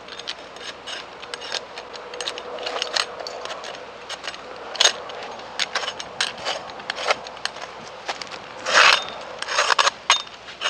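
A hand tool scraping and chipping dead, sunburned bark off an avocado tree trunk: irregular short scrapes and clicks, with one longer, louder scrape about nine seconds in.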